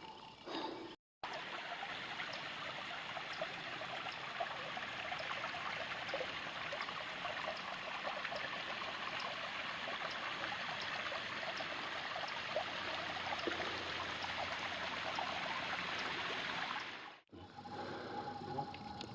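Water trickling and splashing steadily, a small stream running over rocks. A faint high tick repeats about twice a second.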